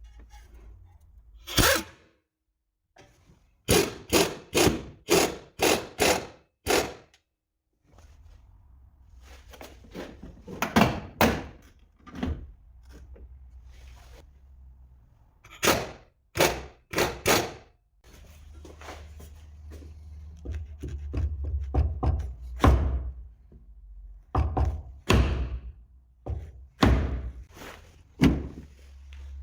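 Sharp knocks on car body metal in quick runs, several a second, typical of tapping dents with a hammer and knockdown tool during paintless dent repair. A low steady hum runs under the later knocks.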